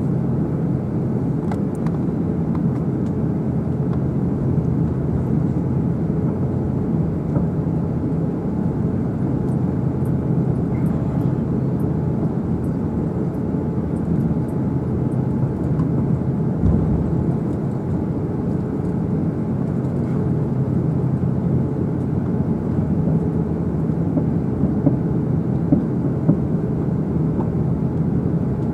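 Steady low drone inside the cabin of an Airbus A350-900 on the ground after landing, with a constant hum and a few faint clicks near the end.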